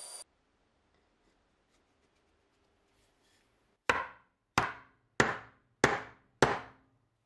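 A belt sander running cuts off right at the start. After a few quiet seconds, five sharp wooden knocks about 0.6 s apart: the end of a hammer's wooden handle rapped down on the workbench to seat the steel head on it.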